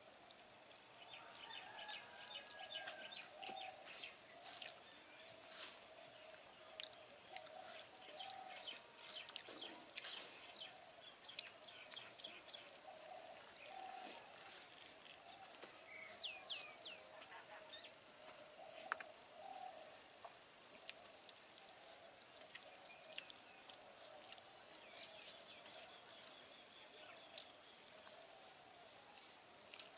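Faint eating by hand: fingers mixing rice on a banana leaf and mouth sounds of chewing, as many small wet clicks and smacks. Birds chirp faintly in the background.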